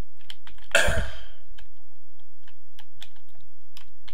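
Computer keyboard typing in quick, irregular keystrokes. A loud, short throat noise comes about a second in.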